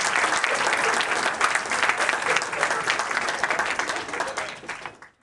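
Audience applause: dense clapping from a crowd that fades away and cuts off near the end.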